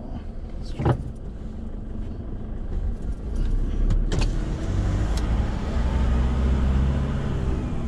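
Toyota Hilux pickup driving: steady engine and road rumble that grows louder and steadier from about three seconds in, with a sharp click about a second in and another about four seconds in.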